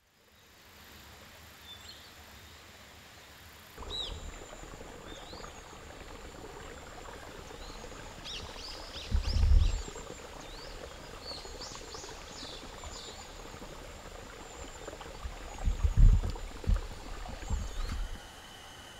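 Countryside ambience: scattered short, high chirping calls over a steady background hiss, with a few loud low rumbles about halfway through and again near the end.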